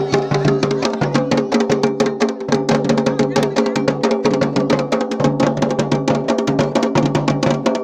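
Garhwali dhol and damau drums played together in a fast, steady rhythm. The dense beats of the small damau run over the deep strokes of the large dhol.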